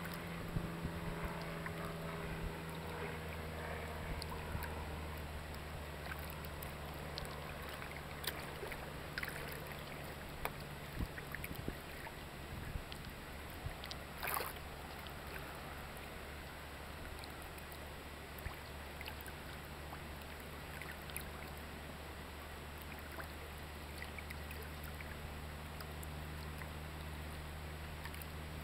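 A boat's motor humming steadily at low idle, with small knocks and splashes of water around the hull. About halfway through there is a brief, louder rushing burst.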